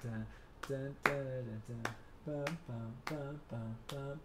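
A man snapping his fingers in a rhythm while voicing short sung syllables without words, a series of brief, level-pitched notes between the snaps.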